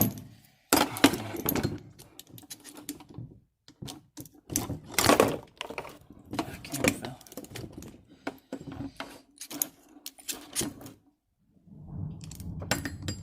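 Small metal tools clinking and rattling in irregular bursts, typical of sockets being picked through and tried on a grease-hose fitting to find the right size.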